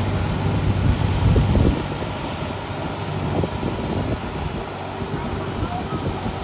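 John Deere tractor's diesel engine running steadily while it tills a flooded rice paddy. It is loudest in the first two seconds, then quieter as the tractor pulls away.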